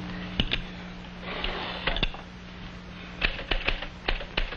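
Typewriter keys striking in irregular keystrokes, a few scattered at first and then a quicker run of strokes near the end, over a steady low hum.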